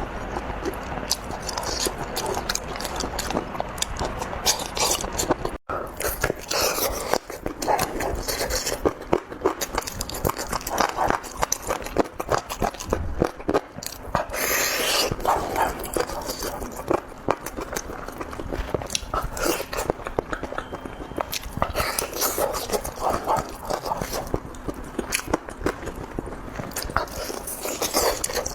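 A person biting and chewing food, with many irregular short smacking clicks.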